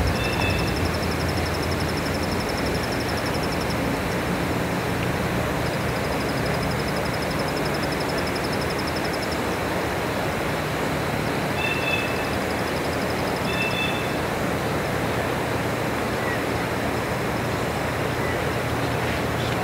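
Steady hiss of outdoor ambience heard from inside a fabric ground blind, with a high, rapidly pulsing trill that comes and goes three times and a few faint short chirps.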